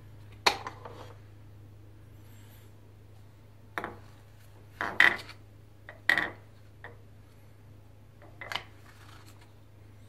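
Hard plastic clacks and knocks from handling a Dolce Gusto capsule coffee machine's parts and capsules. There is a sharp clack about half a second in, a cluster of knocks around four to six seconds, and another near the end, over a low steady hum.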